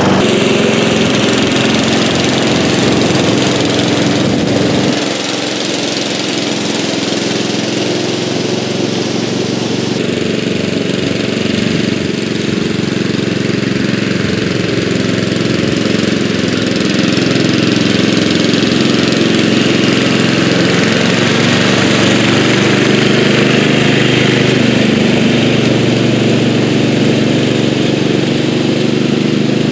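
1983 Bolens G11 LT lawn tractor's 11 hp Briggs & Stratton engine, with raised compression and a different cam, running steadily under load while its mower deck cuts tall grass.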